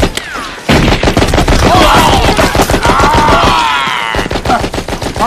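Film battle soundtrack: dense, rapid machine-gun and rifle fire, with men shouting and yelling over it. The firing is heaviest from about a second in until near the end.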